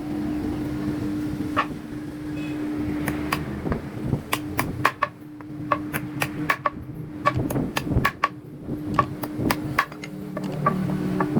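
Hammer striking in a woodworking shop: a run of sharp, irregular knocks, roughly three a second, from about three seconds in to about ten seconds. A steady low hum runs underneath.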